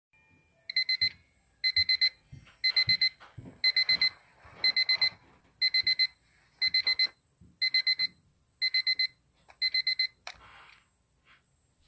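Electronic alarm beeping in bursts of four quick beeps, about one burst a second, ten bursts in all. It stops near the end with a sharp click.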